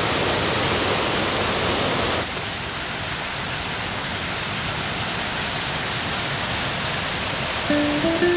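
Steady rushing hiss of fountain water splashing, dropping in level a little over two seconds in. Music begins just before the end.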